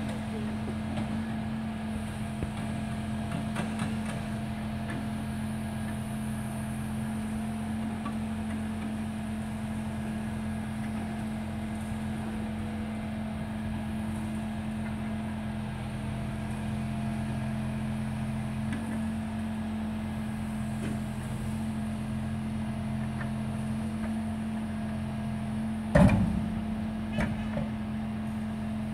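Scania refuse truck's engine and hydraulic crane running with a steady drone as the remote-controlled crane arm moves. Near the end there is one sharp, loud metal clank, followed by a couple of lighter knocks, and the lower part of the drone stops.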